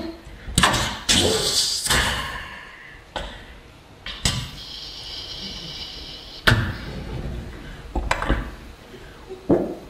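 Beatboxer making vocal sound effects into a handheld microphone: a series of sharp, slam-like hits with a long hiss between them about four to six seconds in.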